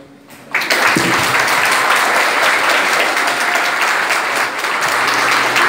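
Audience applauding, starting suddenly about half a second in and keeping up steadily.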